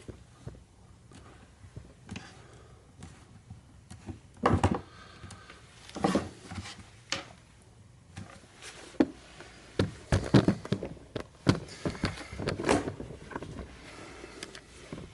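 Irregular knocks, taps and short rubbing sounds from handling a tail light assembly on a workbench while pressing its new seal into place, with a cluster of them near the end.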